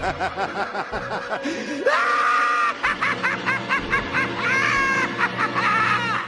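Laughter sound effect: rapid, bouncing bursts of laughing that break into high-pitched shrieking laughs about two seconds in and again near the end.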